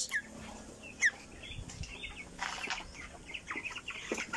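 A flock of 19-day-old broiler chickens calling with short, high, falling peeps: a few single calls at first, then many overlapping calls near the end.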